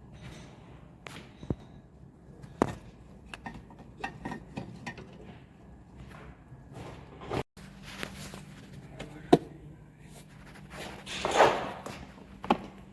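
Tools and parts being handled: scattered sharp clicks and knocks, with a brief scraping rustle about eleven seconds in and a faint steady hum in the second half.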